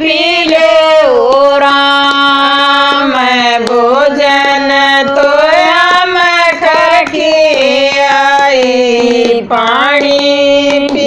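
Women's voices singing a Haryanvi folk bhajan, drawn-out notes that bend and glide between phrases, with hand claps keeping the beat.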